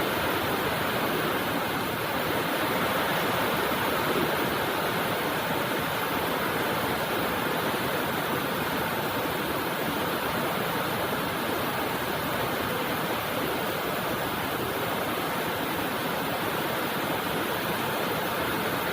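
Steady rain falling, a dense, even hiss.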